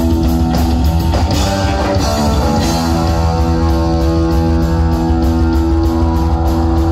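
Heavy metal band playing live and loud: distorted electric guitar holding chords over drums with a steady cymbal beat. About one to three seconds in, the guitar's pitch slides downward before settling back into held chords.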